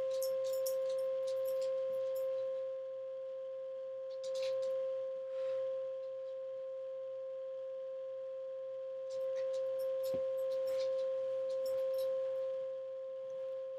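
A steady 528 Hz pure tone, the solfeggio healing frequency, with a fainter overtone an octave above, held without a break. Faint clicks and rustles come and go over it.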